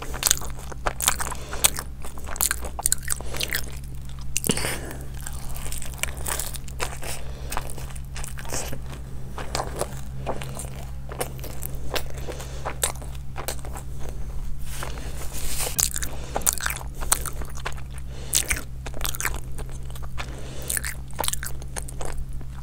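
Close-miked eating: a person chewing and biting into crunchy food, with many irregular crisp crackles and smacks, over a steady low hum.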